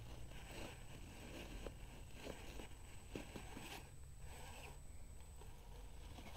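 Axial Capra RC rock crawler climbing a sandstone ledge: its tires scrabble and crunch on the rock, faint and irregular, with scattered small clicks.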